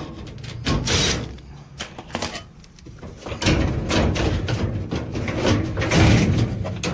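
Clicks, knocks and scraping as the dryer's metal housing and parts are unscrewed and worked loose during disassembly.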